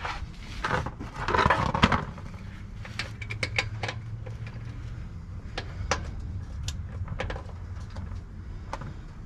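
Scattered clicks and knocks of hand tools being handled under a car while getting at the transmission drain plug, with a louder scraping rustle between about one and two seconds in.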